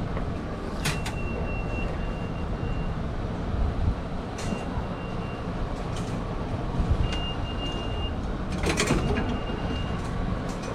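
A high electronic beep sounds four times, each held for about a second, amid metal clicks and clanks of the subway's service entry gate, the strongest clank near the end, over steady low station rumble.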